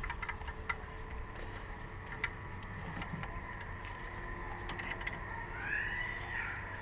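Sparse light clicks and knocks of hand tools working fasteners under the hood, over a steady low hum, with a short rising-and-falling squeak near the end.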